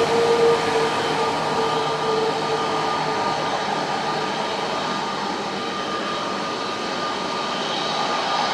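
Boeing 787 jet engines running: a steady rushing noise with whining tones, one of which fades out about two seconds in.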